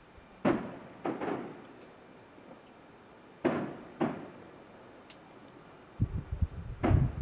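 Distant fireworks display: aerial shell bursts going off in pairs, each sharp bang trailing off into a long echo, with a cluster of low rumbling thuds near the end.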